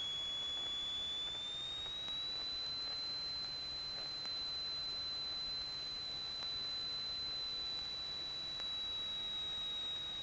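A steady high-pitched electrical whine that rises slightly in pitch over the first two or three seconds, then holds level.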